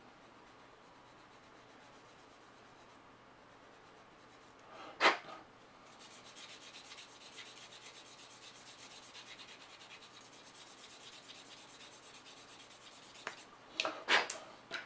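Sanding stick rubbing back and forth on a small plastic model part, a light steady rasping that starts about six seconds in and runs for several seconds, after one sharp click. A few clicks near the end as tools are set down on the mat.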